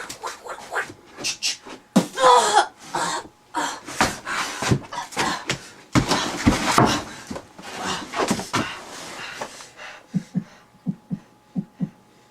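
A person making vocal sound effects with the mouth: a rapid, choppy string of breathy hisses, pops and short voiced noises, giving way about ten seconds in to a run of soft, low pops.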